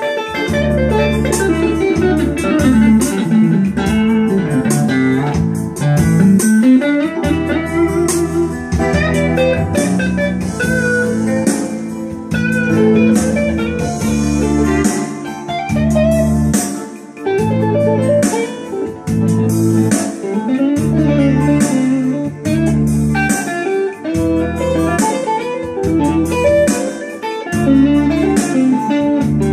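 Stratocaster-style electric guitar playing an improvised lead with bent notes over an arranger keyboard's backing of bass and drums in a steady beat.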